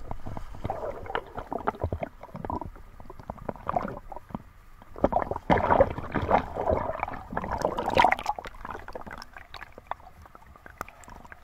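Water splashing and sloshing from a swimmer's strokes, heard by an action camera dipping in and out of the water, so the sound is muffled and gurgling with bubbles. The loudest splashes come about halfway through.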